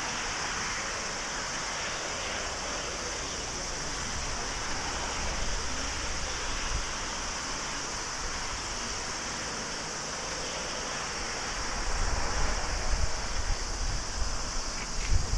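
Airbus A321neo's twin turbofan engines at takeoff thrust, a steady rushing noise as the jet rolls, lifts off and climbs away. Wind buffets the microphone with low rumbles in the last few seconds.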